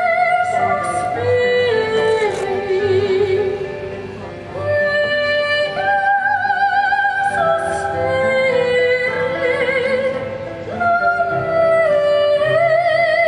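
Music with an operatic singing voice holding long, wavering notes that change pitch every second or two.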